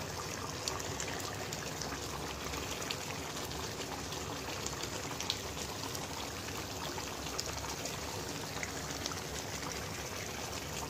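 Chicken roast gravy simmering in a pan: a steady bubbling with scattered small pops.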